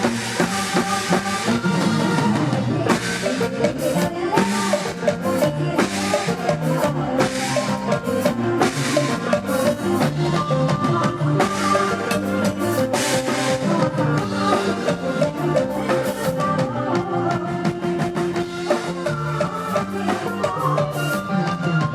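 Live band music with a drum kit keeping a steady beat.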